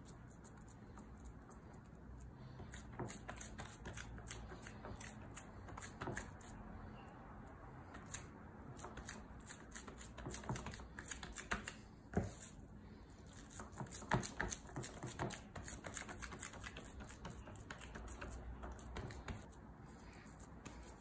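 Hands pressing and patting ma'moul dough flat into a metal baking tray: many soft, irregular pats, taps and rubs, busiest in the middle.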